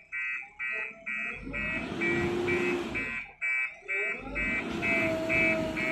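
JCB backhoe loader's reversing alarm beeping about twice a second over its diesel engine, whose pitch rises and falls as the revs change.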